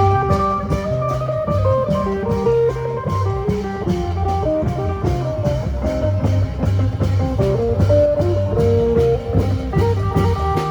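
Isan folk band music in lam phloen style: an amplified phin (Isan lute) playing a running melody over bass and drums that keep a steady, even beat.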